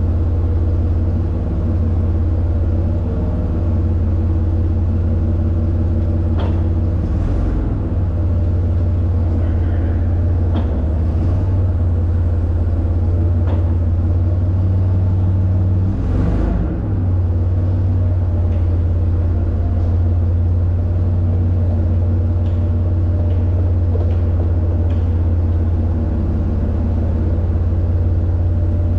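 An engine running steadily at a constant speed, with a deep hum and a few short knocks over it, one louder one about sixteen seconds in.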